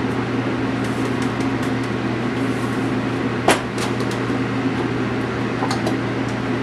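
Steady low mechanical hum from a kitchen appliance or fan, with scattered light clicks and taps as pepper and salt are added, and one sharper knock about halfway through.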